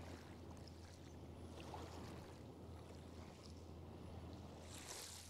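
Faint, steady low drone of a ship's engine on the river, under a faint wash of flowing water, with a short hiss near the end.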